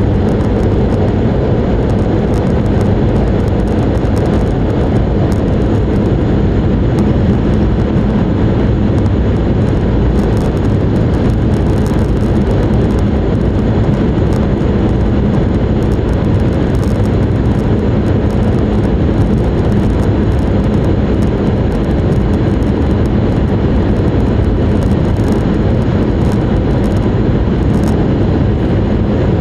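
Steady low rumble and rush of an E5 series Shinkansen running at speed, heard from inside the passenger cabin.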